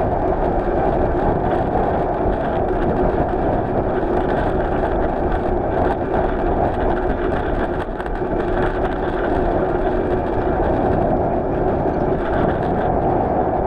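Steady rushing wind and road noise while riding a bicycle along a road.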